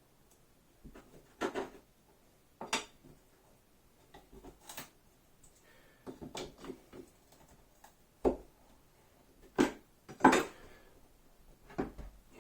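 Wooden beehive frames and equipment being handled: a series of separate short knocks and clatters, the loudest about ten seconds in.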